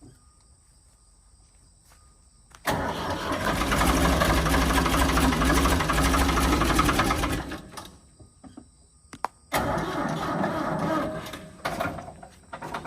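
Ford 550 backhoe engine being cranked by its starter in two tries: a long crank of about five seconds, then after a short pause a shorter one of about two seconds.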